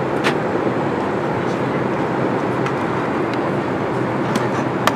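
Steady cabin noise of an Airbus A380 airliner, with a few light plastic clicks as a pair of headphones is handled, the sharpest near the end.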